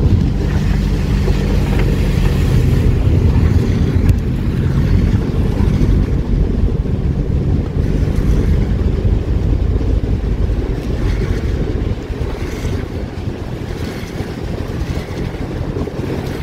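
Car driving slowly over a wet, hail-covered road, heard from inside the cabin: a steady low rumble of engine and tyres through slushy hail.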